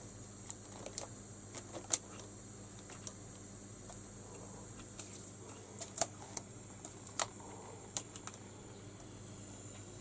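Faint, scattered clicks, taps and rustles of a kitten moving on a pile of newspapers and pawing at a tulle curtain against the window glass, with the clearest taps about two seconds in and a few more between six and eight seconds in.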